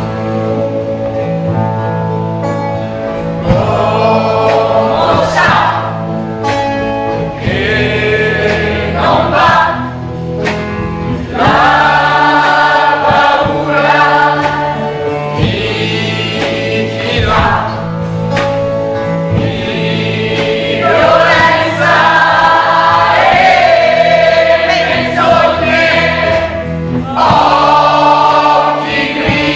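A large mixed chorus of men's and women's voices singing a song together, in phrases a few seconds long over held low notes.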